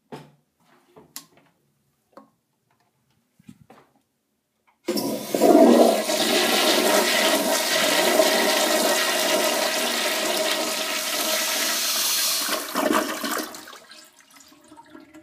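1970s Crane Santon toilet flushing: after a few faint clicks, a loud rush of water starts suddenly about five seconds in, runs steadily for about eight seconds, then fades near the end to a quieter trickle.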